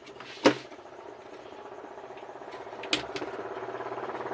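Screwdriver working a screw out of a home theatre's board mounting: a sharp click about half a second in and another near three seconds, with a fast, even rasping tick building slowly between them.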